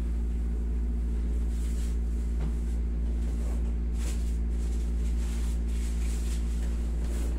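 A steady low mechanical hum, with a few faint, brief rubbing sounds of hands massaging a leg.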